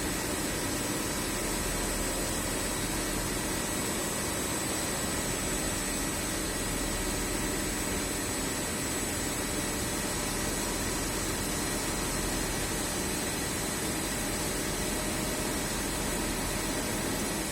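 Steady, unchanging noise like a fan or running machine, with a thin high whine above it.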